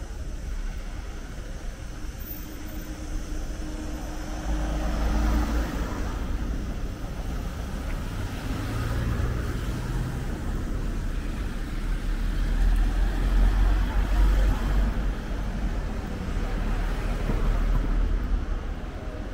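Road traffic: cars passing, their engine and tyre noise swelling twice as vehicles go by, with the louder pass past the middle.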